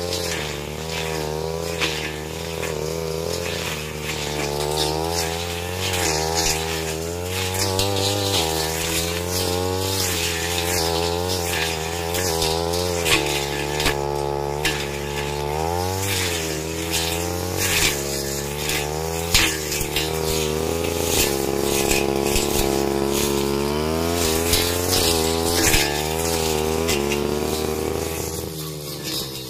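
Backpack brush cutter engine running under load, its revs rising and falling as the blade swings through ferns and undergrowth, with ticks and clatter of plant stems hitting the blade. Near the end the engine winds down.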